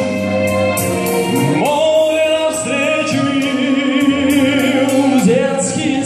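A male singer with a microphone holds long notes that scoop up into pitch and waver with vibrato, over a backing track with a steady beat.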